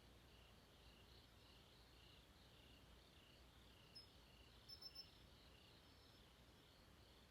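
Faint chorus of night crickets, a steady pulsing trill at about two pulses a second. About halfway through come a few short, high chirps, three in quick succession.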